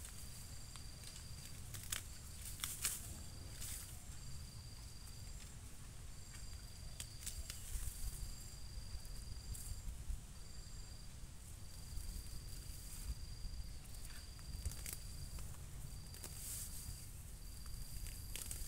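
An insect trilling at a steady high pitch in repeated bursts of about a second each, broken by short pauses. A few short rustles and snaps of plant stems stand out above it.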